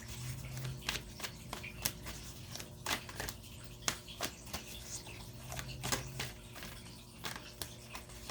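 Tarot cards being shuffled and handled: irregular light snaps and clicks of card stock, over a faint steady hum.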